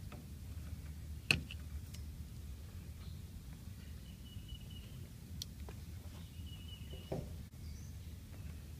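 Steady low outdoor rumble with a few sharp clicks of pliers handled at the unit's wiring, the loudest about a second in. Faint high bird chirps come and go.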